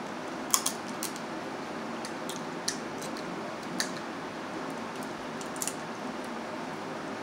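Steamed Maryland blue crab shells being cracked and picked apart by hand: about eight short, sharp cracks and clicks, the loudest about half a second in. Under them runs the steady noise of an electric fan.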